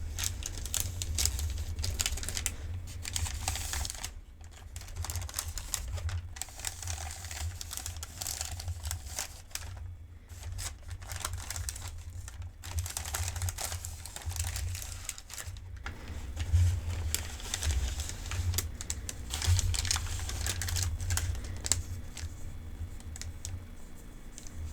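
Paper medication-guide sheet crinkled and handled close to the microphone: a dense run of irregular crackles and small taps, pausing briefly now and then, over a low handling rumble.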